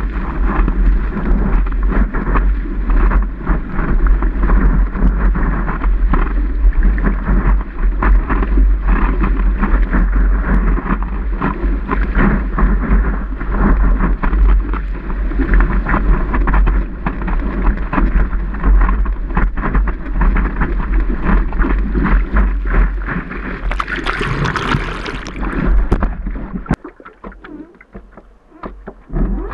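Whitewater rushing and spraying past a surfboard as it rides a breaking wave, with heavy wind and water buffeting on the board-mounted camera's microphone. Near the end there is a brief, sharper splashing hiss, then the rush drops away and it goes much quieter.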